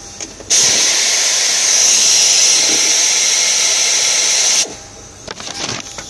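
Pneumatic hand tool running on compressed air for about four seconds: a loud, steady hiss that starts and cuts off abruptly. A few small clicks follow near the end.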